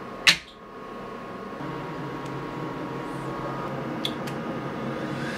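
Laser head snapping onto its magnetic docking station with one sharp click just after the start. About four seconds in come two light clicks as the red arming button on the laser's CNC adapter is pressed, over a steady hum.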